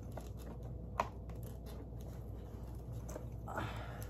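Handling noise as an arm is worked into the shoulder of a Bloodthirsty Betty animatronic prop: a sharp click about a second in and a brief rustling scrape near the end, over a low steady hum.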